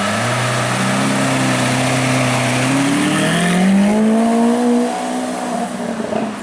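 Lamborghini Aventador's naturally aspirated 6.5-litre V12 pulling away at low revs. Its note steps up just after the start, climbs steadily from about three seconds in, then fades as the car moves off.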